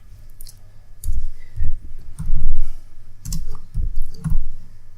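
Typing on a computer keyboard: irregular key clicks, several landing with a heavy thud.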